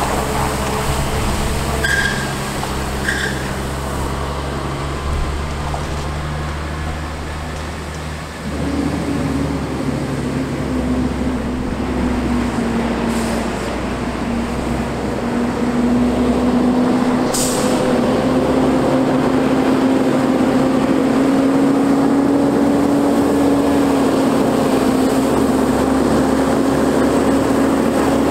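Water truck's Caterpillar C7 diesel engine running, with short air hisses about two and three seconds in and again past the middle. About eight seconds in its drone steps up to a stronger, steadier note that climbs slowly in pitch as the engine speeds up.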